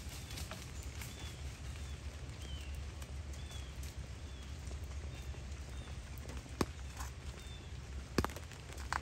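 Wet woodland ambience: a small bird chirping faintly, the short note repeated every half second or so, over a steady low rumble. A few sharp ticks come in the last third.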